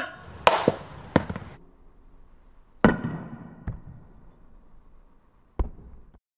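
A hammer striking a solid bowling ball on a tree stump: a quick cluster of sharp knocks, then single blows a second or two apart. Each knock dies away quickly.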